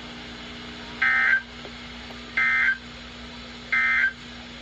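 Three identical short bursts of NOAA Weather Radio SAME digital data tones, a warbling two-tone squawk repeated about every second and a half: the End-Of-Message code sent three times to close the required weekly test.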